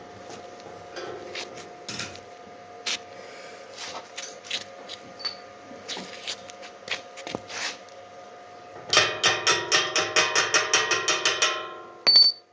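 A hammer striking steel. Scattered light taps, then about nine seconds in a rapid run of loud ringing metal strikes, about five a second, ending with two sharp blows. This is typical of a chipping hammer knocking slag off a fresh weld.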